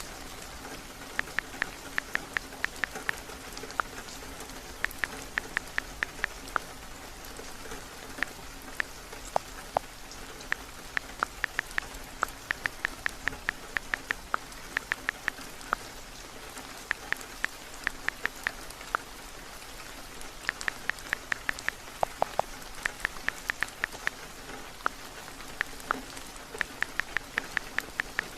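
Steady heavy rain on a wooden cabin, with runs of quick, sharp taps, about five a second, from typing on a mobile phone's keyboard, broken by short pauses.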